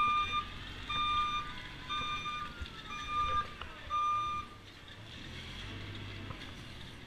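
Reversing alarm on a Massey Ferguson 9407S Xtra telehandler beeping about once a second, five half-second beeps, stopping about four and a half seconds in, with the telehandler's engine running underneath.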